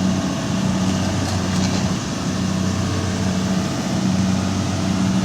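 Heavy machinery's diesel engine running steadily at a low, even pitch, its hum swelling and fading about once a second.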